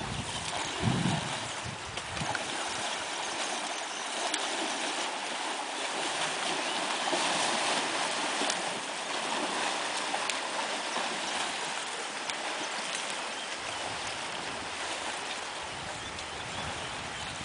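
Steady rush of flowing river water, with splashing from elephants wading through the shallows. A brief low thump about a second in.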